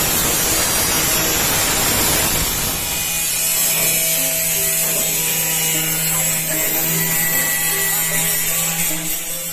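Harsh, steady hissing noise of steel being worked, with background music coming in under it about three seconds in.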